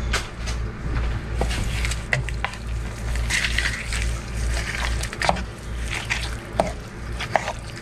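Wooden spatula stirring a thick creamy chicken and frozen-pea mixture in a pan, with scraping and a few sharp clicks of the spatula against the pan over a steady low hum.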